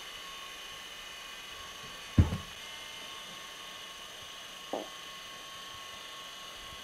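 A steady high-pitched electronic whine over hiss, with a dull thump about two seconds in and a lighter knock near five seconds.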